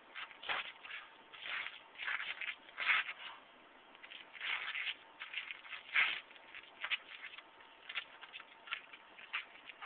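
Shoes scuffing and stepping on gritty asphalt during baguazhang footwork, in irregular short scrapes. The loudest come about three and six seconds in.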